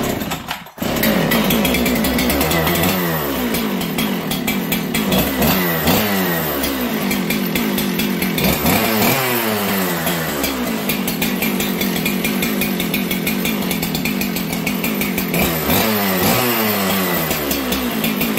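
A Husqvarna 372 X-Torq two-stroke chainsaw starts about a second in on a recoil pull and runs. It is revved up several times, and each time it drops back down.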